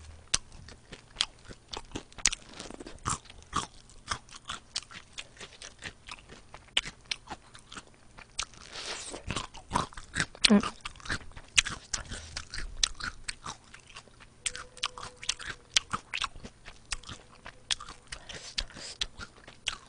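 Close-miked chewing of crispy fried chicken wings: many short, sharp crunches at an uneven pace, with softer chewing in between.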